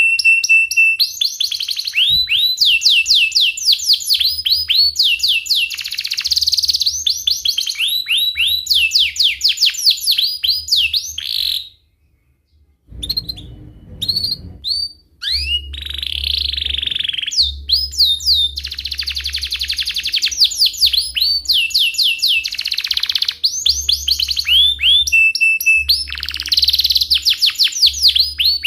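Domestic canary singing a long, continuous song of rapid rolling trills: quick runs of sweeping chirp notes repeated over and over. The song breaks off for about a second around the middle, then resumes.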